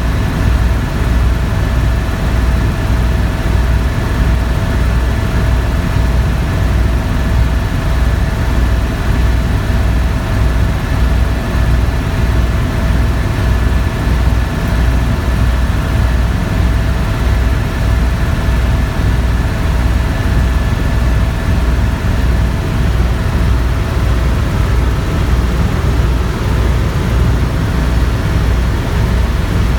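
Tour helicopter in flight: the turbine engine and rotor run steadily, with a fast, even low pulsing from the rotor blades and two steady tones over a rushing noise.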